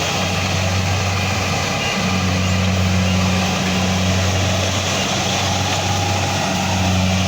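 An engine running steadily at a constant speed, a continuous low hum under a dense noisy layer.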